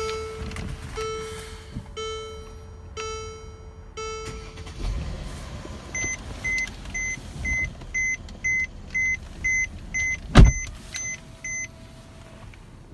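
Dashboard warning chimes of a 2014 Mercedes-Benz E350, heard from the cabin. A low chime sounds about once a second for the first four seconds. From about six seconds in, a faster high beeping follows at about two a second until near the end. A single sharp thump about ten seconds in is the loudest sound.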